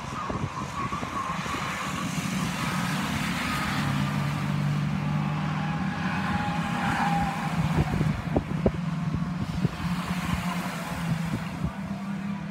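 Stock car engines running as the cars lap the oval, a steady engine note that drifts a little in pitch, with a few sharp clicks about two thirds of the way through.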